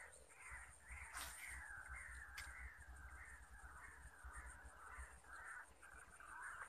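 A rapid series of short, rasping animal calls, repeating a few times a second. A brief swish comes about a second in, and a single click a second after that.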